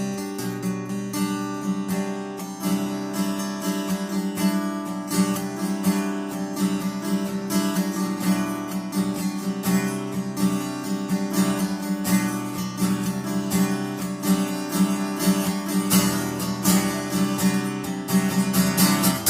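Acoustic guitar strummed steadily in an instrumental break, chords ringing with a dense, even rhythm of strokes.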